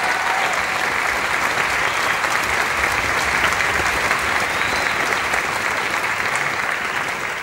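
Theatre audience applauding steadily, clapping that tapers off near the end.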